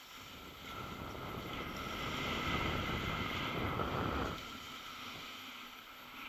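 Skis hissing over snow on a downhill run, with wind rushing on the microphone; the noise builds over about two seconds and cuts off sharply a little after four seconds in.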